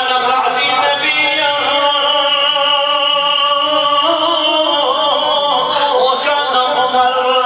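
A man singing a slow, drawn-out melody, holding long notes with the pitch wavering in places.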